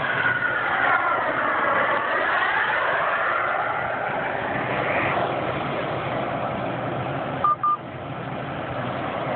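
Twin P-120 turbine engines of a scale SR-71 Blackbird model jet roaring past overhead, the sound sweeping down and back up in pitch as it passes. A short double beep cuts in near the end.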